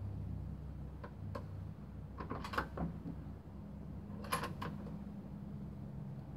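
Light metallic clicks and clacks from a Savage .223 bolt-action rifle being handled, two loose ones about a second in, then a quick cluster around two and a half seconds and another pair a little past four seconds. A steady low hum runs underneath. No shot is fired.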